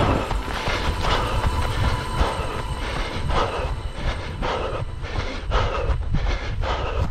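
A runner's rhythmic footsteps, a short swish or crunch about twice a second, over a steady low rumble of wind on the head-mounted camera's microphone.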